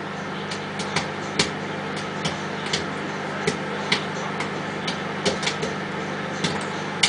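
Popcorn kernels popping irregularly, about two to three sharp pops a second, in a plastic-wrap-covered bowl inside a running microwave oven, over the oven's steady hum.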